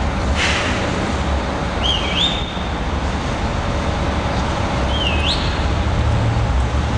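City street traffic noise: a steady low rumble of passing vehicles. A brief hiss comes just after the start, and a short high chirp that dips and then rises sounds twice, about two and five seconds in.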